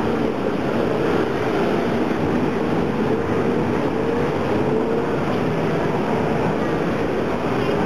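Steady city street traffic noise: car and motorcycle engines running together without a break, with a wavering engine hum.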